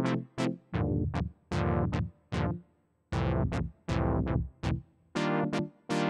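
ASM Hydrasynth Explorer playing a synth brass patch: a rhythmic run of punchy chord stabs, each bright at the attack and quickly turning duller. There is a short pause about three seconds in, and deeper bass notes sound under the middle chords.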